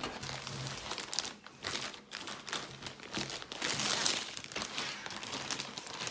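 Clear plastic protective bag crinkling and rustling in irregular bursts as a laptop is slid out of it.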